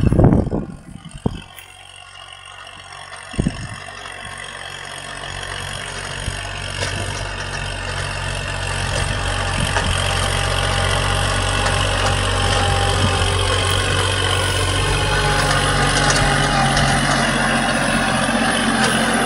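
Kubota L4018 tractor's diesel engine running steadily under load while pulling a disc plow through dry soil, growing louder as it comes closer. A few loud thumps in the first seconds, with one more about three and a half seconds in.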